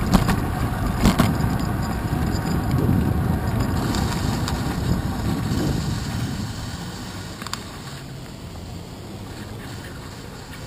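Bicycle rolling over wet pavement, picked up by a handlebar-mounted action camera: steady road and tyre noise with a few sharp knocks. The noise dies down over the second half as the bike slows to a stop, leaving quieter passing car traffic.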